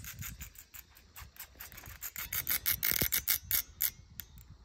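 Baitcasting reel being cranked in, giving a fast rhythmic ticking rasp of about six or seven ticks a second that grows louder about halfway through.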